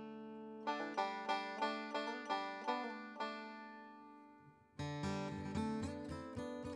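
Background acoustic country music on plucked strings: a run of quick plucked notes over a held chord that dies away, then the band comes back in with strumming and bass notes about two-thirds of the way through.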